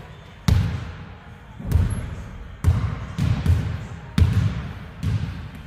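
A basketball bouncing on a hard court: about eight sharp thuds at an uneven pace.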